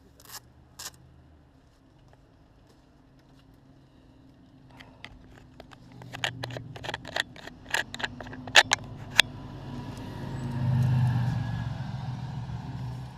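A vehicle engine building up to its loudest about eleven seconds in and then easing off, as a vehicle passes close by. Before it come two sharp clicks near the start and a quick run of sharp clicks and knocks in the middle.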